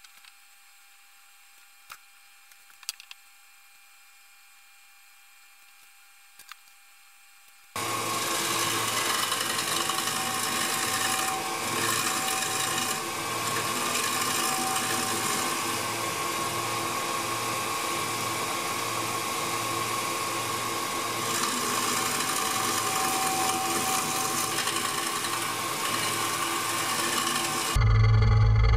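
A few light clicks over near quiet. Then, about eight seconds in, a wood lathe starts up and a turning tool cuts into the spinning segmented pear-wood vase: a steady machine sound with wood shavings being scraped off. A louder low hum takes over just before the end.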